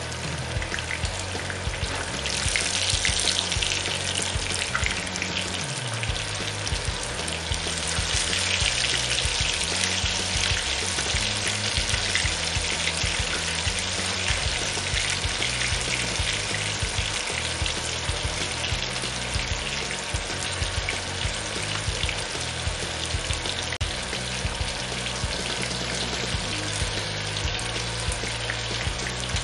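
Herring roe coated in potato starch deep frying in hot oil in a pan: a steady, dense crackle and sizzle that swells louder about two seconds in and again from about eight seconds in.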